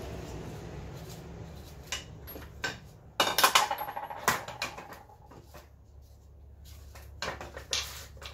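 Metal parts of a BMW Z3 strut assembly clinking and knocking as the strut is pulled apart from its compressed coil spring and spring compressors. The knocks are scattered, loudest in a cluster about three to four and a half seconds in, over a low hum that fades early on.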